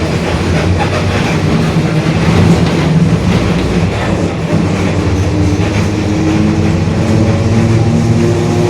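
Mercedes-Benz OF-1721 BlueTec 5 city bus under way: diesel engine drone with body rattles, and a whine that climbs in pitch through the second half, the growl of the bus's differential.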